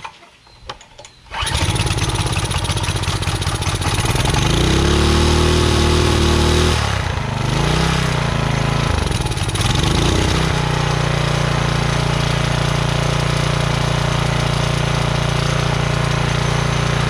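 Gas pressure washer's small engine pull-started, catching on the first pull about a second in. Its speed rises, dips and surges a couple of times, then it settles into a steady run. The pump is turning dry with no water hooked up.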